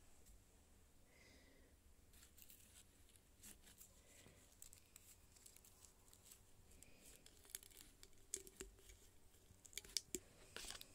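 Faint rustling and crinkling of dried herbs and berry stems being handled over an open porcelain teapot. A few small sharp clicks come near the end as a cluster of red berries is pushed into the teapot's neck.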